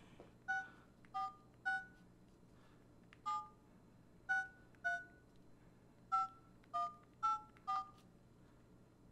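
Flip phone keypad dialing: ten short two-tone touch-tone beeps as a ten-digit phone number is keyed in, in groups of three, three and four with pauses between the groups.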